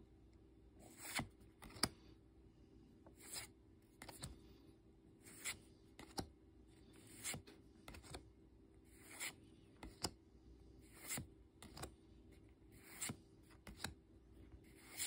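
Pokémon trading cards being flipped through one at a time by hand: each card slid off the front of the stack and onto the back with a soft papery swish and a light tick of card stock, about every two seconds. Faint.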